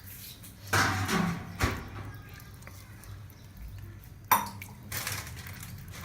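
Metal kitchen utensils clattering against a cooking pot, with a sharp ringing clink about four seconds in.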